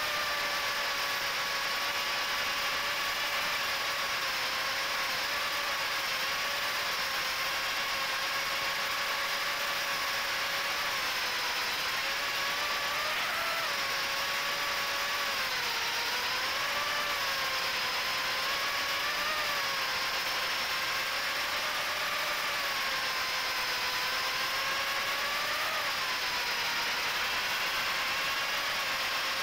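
Micro FPV quadcopter's 1104 7500kv brushless motors spinning Gemfan 3018 props: a steady whine over hiss, its pitch dipping and rising briefly several times as the throttle changes.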